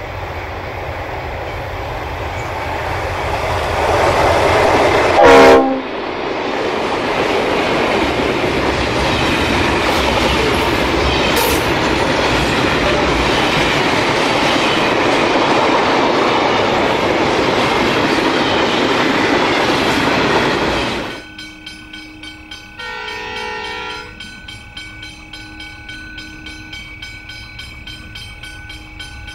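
Diesel-hauled container freight train passing close by: a short horn blast about five seconds in, the loudest sound, then the steady rumble and clatter of the container wagons rolling past. After a sudden drop about two-thirds through, a second diesel freight train is heard further off, with a steady engine hum and one brief horn blast.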